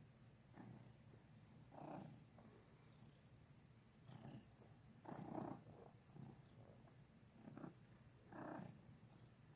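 Domestic cat purring faintly, in soft swells that come and go about once every second or so with its breathing.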